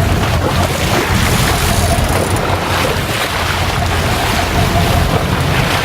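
Fishing boat at sea: a steady low engine rumble under the rush of wind and water, with wind buffeting the microphone.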